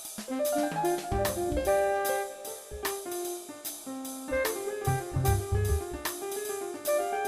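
Background jazz music with piano, guitar and drum kit playing to a steady beat.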